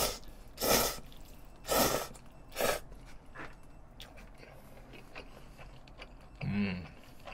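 Bibim-myeon noodles slurped hard, four quick pulls in the first three seconds, followed by faint chewing. A short low hum is heard near the end.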